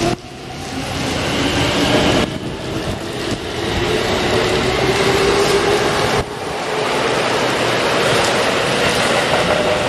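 Keikyu 800-series electric train pulling out of the station: its motors whine, rising slowly in pitch as it gathers speed, over the rumble of the wheels.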